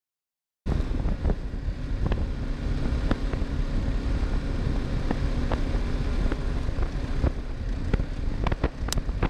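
A vehicle driving, a steady low rumble with wind noise and scattered sharp clicks and ticks, cutting in suddenly about half a second in.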